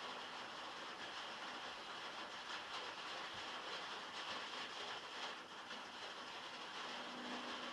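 Heavy rain falling on a metal roof, heard from inside a shed: a steady, dense patter of drops with no let-up.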